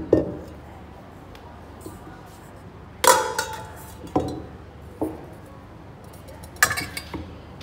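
Stainless steel mixing bowls being set down and nested into one another, clanking and ringing briefly: about five metal knocks, the loudest about three seconds in and a quick cluster near the end.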